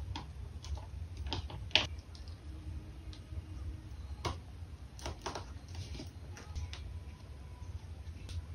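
Irregular small clicks and taps of tweezers and sticker sheets as stickers are peeled off and pressed onto a paper journal page, with one sharper click about two seconds in, over a steady low hum.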